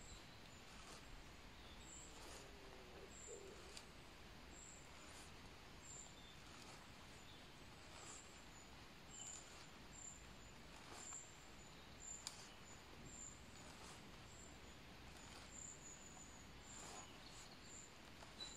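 Near silence: faint outdoor background hiss with a string of faint, short, high-pitched chirps and a few faint scattered clicks.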